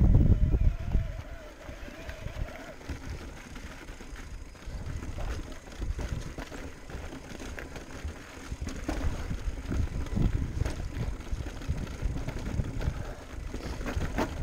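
Commencal Meta Power electric mountain bike riding over a rough trail: uneven rumble of tyres and wind on the microphone with frequent knocks and rattles from the bike. The loudest rumble comes right at the start, with a faint whine over the first couple of seconds.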